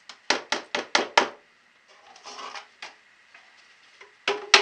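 Plastic measuring cup scooping granulated sugar from a paper bag and tipping it into a plastic bucket: a quick run of about five sharp scrapes and taps in the first second, a soft sugar rustle after, and more sharp clicks near the end.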